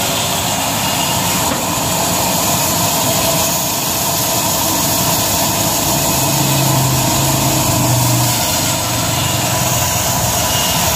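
Belt-driven vertical band saw running and cutting through a log, a steady whine and hiss of blade and motor. A lower hum swells for a couple of seconds about six seconds in.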